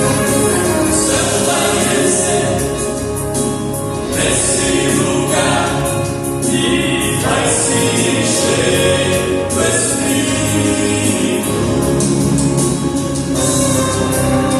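A vocal quartet singing a gospel hymn in harmony over backing music, holding long chords.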